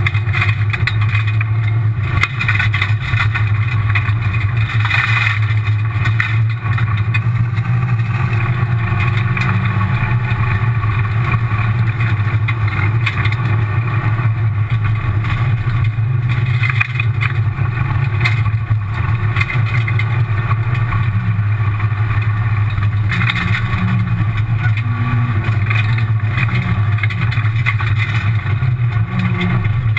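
Rally car's engine running hard under load at a fairly steady pitch, heard from inside the stripped cockpit, with tyre and gravel road noise from the forest stage at speed.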